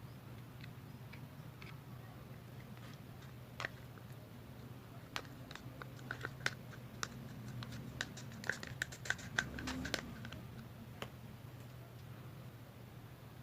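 Light taps, clicks and short scrapes of utensils and containers being handled during food preparation, thickest from about four to eleven seconds in, a few with a brief ringing tone, over a steady low hum.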